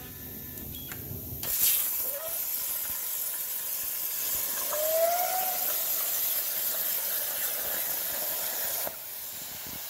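Plasma cutter torch cutting steel plate on a CNC plasma table. The arc strikes with a sudden hiss about a second and a half in, runs as a steady hiss, and cuts off near the end.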